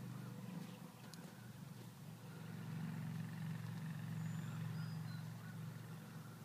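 Steady low hum of a vehicle engine running, growing louder in the middle. A couple of faint high bird chirps come near the end.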